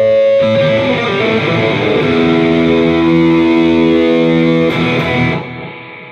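Intro music: distorted electric guitar playing held, ringing chords, which die away near the end.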